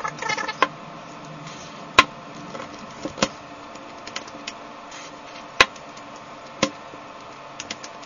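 Plastic 3x3 puzzle cube turned by hand to work in freshly sprayed Jig-a-loo silicone lubricant, a cube noted as stiffer than the others: a clicking of the turning layers, with a quick run of small clicks at the start and three sharp clacks later. A faint steady hum runs underneath.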